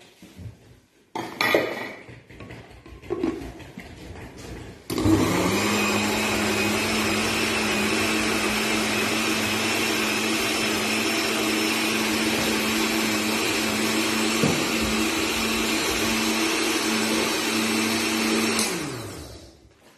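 Countertop blender blending chopped cucumber into a pepper purée: a few knocks and rattles first, then the motor starts suddenly about five seconds in, runs at a steady pitch, and winds down with a falling pitch near the end.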